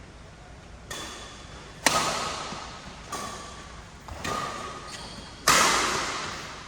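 Badminton rally: rackets striking the shuttlecock about five times, roughly a second apart. The hits around two seconds in and five and a half seconds in are the loudest, and each hit rings on briefly in the hall.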